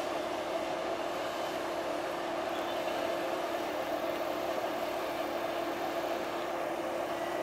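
KiHa 11 diesel railcar's engine idling while the railcar stands at the platform, a steady droning hum that does not change.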